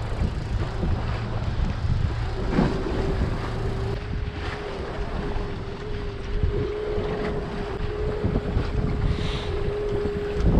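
Strong wind buffeting the microphone on a small fishing boat, a dense low rumble, with a steady hum setting in a couple of seconds in and a few light knocks.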